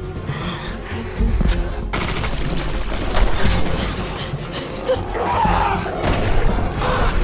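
Film trailer soundtrack: dramatic music with loud booms and crashing hits cut into it.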